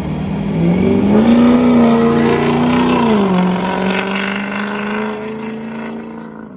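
A vehicle engine revving up, holding the higher revs for about two seconds, then dropping back and fading out.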